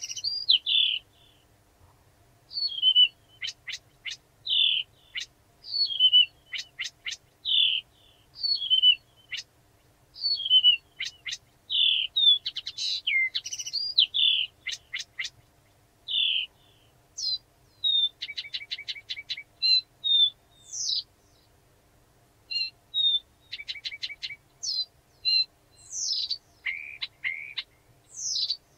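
Blyth's reed warbler singing a slow, varied song of repeated motifs: down-slurred notes each given several times in a row, sharp clicks, and a fast clicking rattle past the middle.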